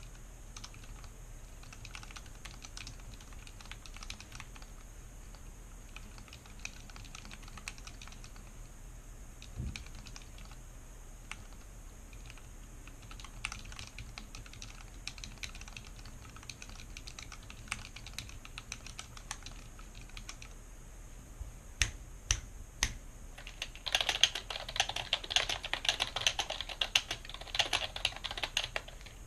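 Fast typing on a mechanical keyboard resting on a cloth mat: a quick, uneven run of key clicks. A few sharper keystrokes come around three-quarters of the way through, and the clicking turns much louder and denser for the last few seconds.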